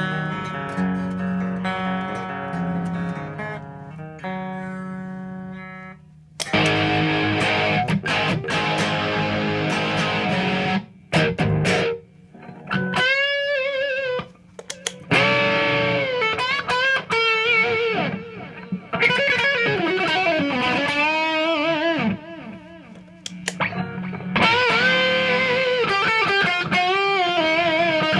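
Electric guitar (Epiphone Les Paul) played through a Marshall JCM 2000 TSL 60 tube amp. Sustained chords ring for the first six seconds, then distorted lead lines follow, with string bends, vibrato and short pauses.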